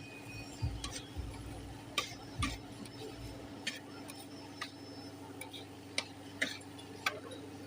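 Metal cooking utensils clicking and knocking irregularly, about one sharp tap a second, over a steady low hum.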